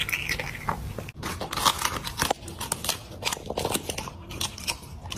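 Crisp, crackling crunches of a pet biting and chewing raw cabbage leaves: a fast, irregular run of sharp bites, with a short break about a second in.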